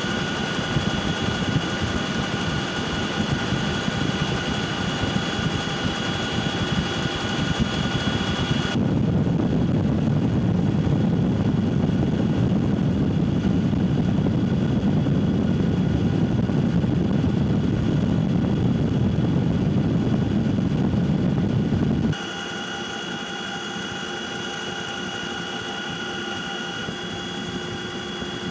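Military helicopter's turbine engines and rotors running, a steady high whine over a low rumble. The sound changes abruptly twice: about nine seconds in the whine drops out, leaving a heavier low rumble, and about twenty-two seconds in the whine returns, quieter, with less rumble.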